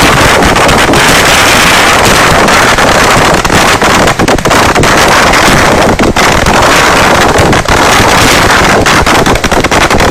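Continuous barrage of firecracker explosions from the climax of a vedikettu fireworks display, the blasts running together into one unbroken, very loud noise that overloads the microphone, with brief dips between volleys.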